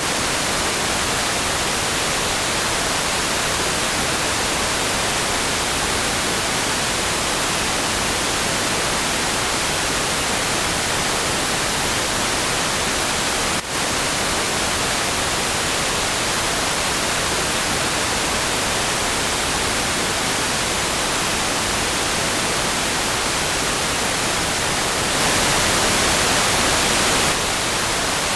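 Steady pink noise, an even, unchanging hiss spread across all pitches. About halfway through there is a brief dip with a faint click, and for about two seconds near the end it gets slightly louder and brighter.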